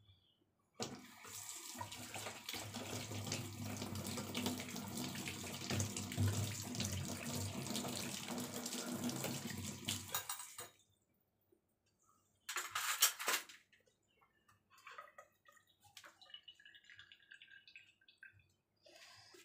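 Kitchen tap running into a sink for about ten seconds, then stopping. A brief rush of water about thirteen seconds in, followed by faint light clatter.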